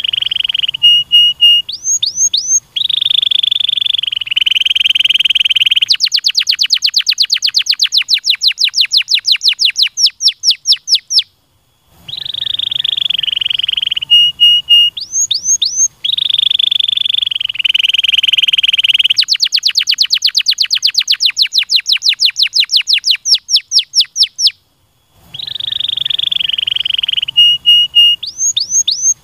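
Domestic canary singing a long song of buzzy rolling trills, quick rising whistles and fast runs of rapidly repeated notes. The song breaks off briefly about eleven and twenty-four seconds in, and the same song sequence starts over after each pause.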